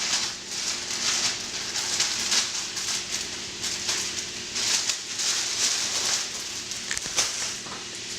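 Pot of water at a rolling boil with broccoli just dropped in, bubbling and crackling in irregular swells.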